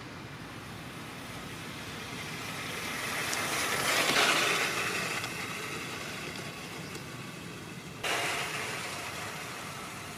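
Traxxas TRX-4 Bronco RC crawler driving over dry leaf litter: its electric motor and gears whine while leaves crunch under the tyres. The sound swells as the truck comes close about four seconds in, then fades. It comes in again suddenly about eight seconds in and fades as the truck drives away.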